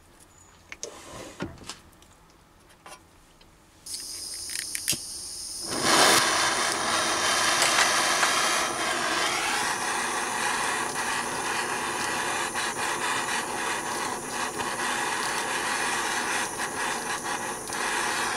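Small gas blowtorch: gas hissing on about four seconds in, then a louder steady rush from about six seconds as the flame heats a brass spigot set in a marble sphere. Around the middle a small lathe's motor starts with a rising whine and runs on under the torch, which cuts off near the end.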